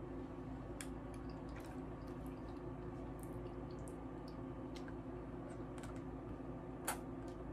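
Faint wet lip smacks and small mouth clicks of someone sucking and licking frozen corn syrup squeezed up from a plastic bottle, with one sharper click near the end, over a low steady hum.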